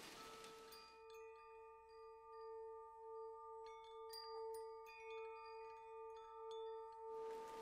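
Soft ambient relaxation music: a steady held drone with chime-like struck notes ringing out over it. A rain-like hiss fades out about a second in and returns near the end.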